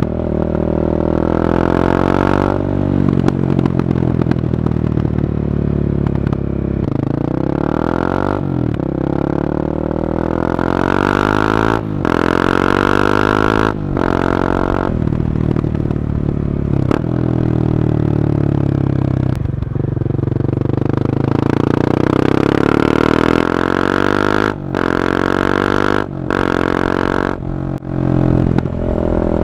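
Honda CB300R's single-cylinder engine through an Akrapovic carbon exhaust under way, revving up through the gears: the pitch climbs again and again, each climb broken by a brief dip in sound at the shift.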